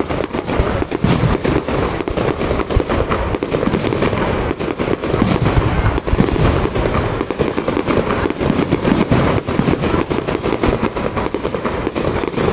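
Fireworks display: aerial shells bursting one after another, a dense, unbroken run of bangs and crackling with several reports every second.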